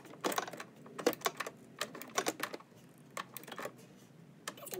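Socket ratchet wrench clicking in several short runs as it tightens an M8 hex nut securing the car battery.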